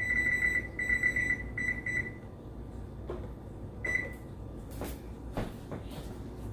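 Electronic beeping from a kitchen appliance's control panel: a run of short, high beeps in the first two seconds and one more about four seconds in, followed by a few sharp knocks.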